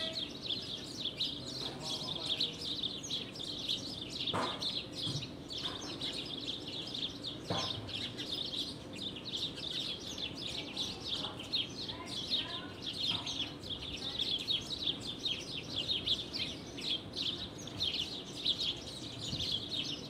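Forest bird chorus: many birds chirping densely and without a break, high-pitched, with a few lower separate calls now and then.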